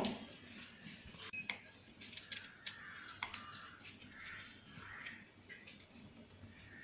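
Faint scraping and light clicks of a blade working the skin off a piece of fresh ginger, with a brief clink about a second and a half in.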